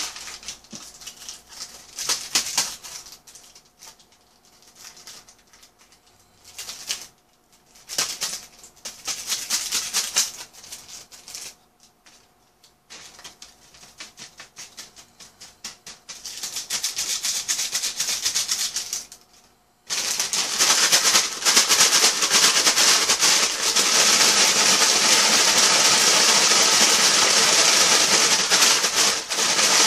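Paper food packaging rustling and crinkling in short irregular bursts as takeout wrappers and a paper bag are handled. About two-thirds in it turns into a continuous, louder rustling as a small paper fries packet is worked in both hands.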